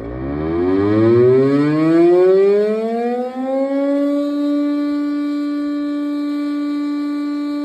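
Fire station's electric motor siren winding up from a low growl, rising in pitch for about four seconds, then holding one steady tone. It is sounding the 12 o'clock noon signal.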